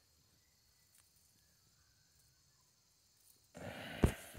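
Crickets chirping steadily in the background. Near the end a brief loud rustle with one sharp knock cuts in.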